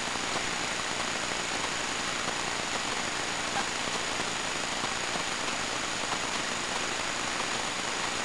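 Steady, even hiss with a thin, constant high-pitched whine and a faint low hum.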